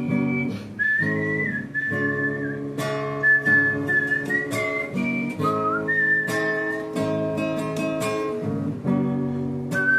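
Whistled melody over a strummed acoustic guitar: a single clear whistled tune moving in steps above steady chords, with regular strum strokes.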